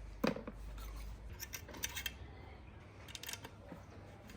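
Scattered light clicks and clinks of a semi-automatic shotgun and its small parts being handled.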